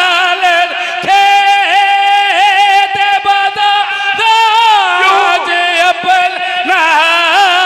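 A man's voice chanting a Punjabi mourning lament (vain) in long, wavering held notes that glide up and down.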